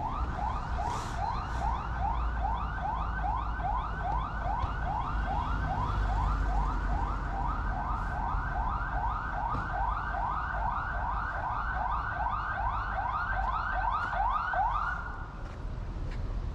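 Electronic siren in a fast yelp: a rising sweep repeated between two and three times a second, cutting off suddenly near the end, over a low rumble of street traffic.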